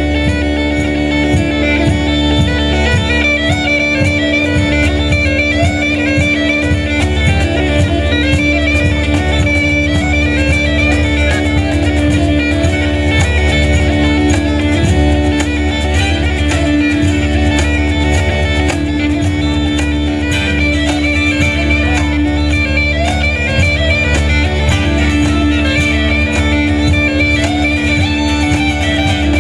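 Instrumental folk-punk band passage: uilleann pipes play the melody over a steady drone, backed by a strummed mandolin-family instrument, cajón and double bass.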